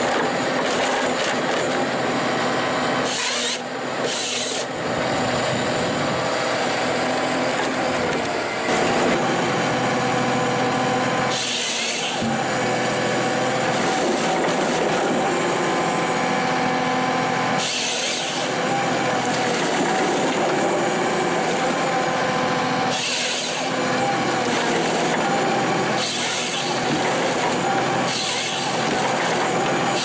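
Forestry harvester running steadily while its head's spiked feed rollers drive a thin tree stem through the delimbing knives. Several short bursts of high hiss break in every few seconds.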